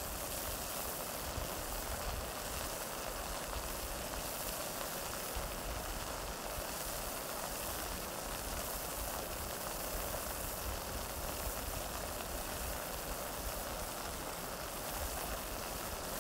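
Chicken tocino pieces frying in a nonstick pan: a steady sizzle as the sugary marinade cooks down and chars, with a low hum underneath.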